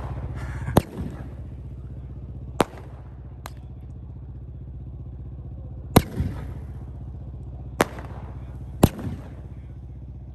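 Consumer firework cake firing slowly, one shot at a time: about six sharp bangs spaced one to three seconds apart. A steady low hum runs underneath.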